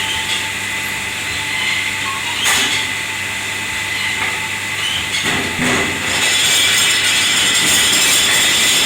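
Kitchen wash-up noise: a machine's steady hum and hiss with a few knocks and clatters of crockery and metal, the hiss growing louder about six seconds in.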